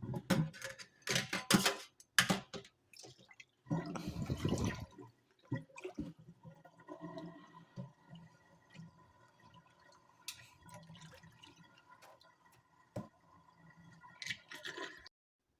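Water splashing and sloshing in a kitchen sink as raw chicken is washed, loudest in irregular bursts during the first five seconds. It then settles to scattered drips and small splashes over a faint steady hum.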